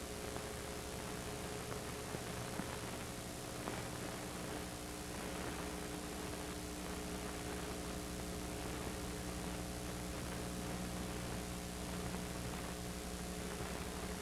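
Steady hiss and electrical hum with no soundtrack, the sound of a transfer whose original audio is missing; a few faint clicks in the first few seconds.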